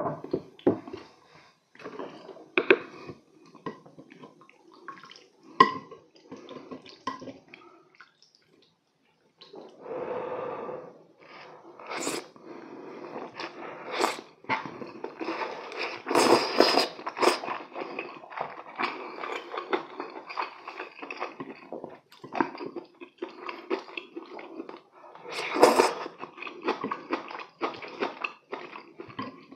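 Close-up eating sounds: wet chewing and slurping of glass noodles from saucy steamed chicken, with chopsticks clicking against the dish. Scattered clicks and short bites come first, then a brief pause about a third of the way in, then a long stretch of dense slurping and chewing.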